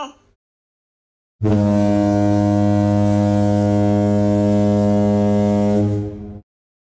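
One long, deep horn blast at a steady pitch, starting suddenly about a second and a half in and holding for about five seconds before fading out.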